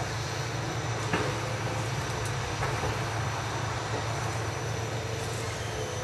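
Hitachi EX200 hydraulic excavator's diesel engine running steadily under load, a continuous low drone with a faint steady whine above it. One sharp knock comes about a second in.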